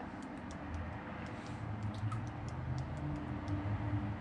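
Smartphone on-screen keyboard clicking as thumbs type, quick irregular taps about four a second, over a low steady hum.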